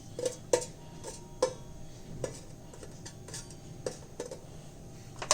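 Light, irregular taps and clicks, about a dozen, against a plate as biscuit crumbs are spread thickly over a chicken cutlet.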